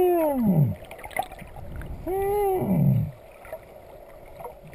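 A swimmer's voice making two long hooting calls underwater, heard muffled: each rises slightly and then slides down in pitch, one at the start and one about two seconds in. It is the noise swimmers make to draw dusky dolphins in.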